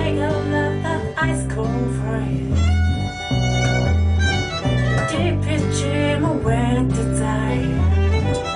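Bluegrass band playing an instrumental break: a fiddle carries the melody over guitar and long, held low bass notes.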